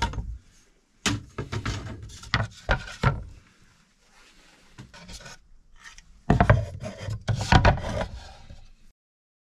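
Hand work on a wooden board: irregular knocks and scraping or rubbing strokes in bursts, which cut off suddenly near the end.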